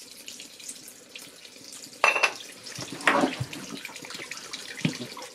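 Seawater trickling and splashing from the raw-water impeller pump of a Yanmar 3YM30 diesel as it is worked on by hand, with louder surges about two and three seconds in.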